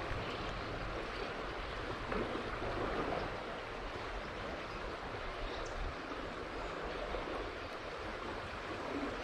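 Steady rush of river water flowing, with a low rumble underneath.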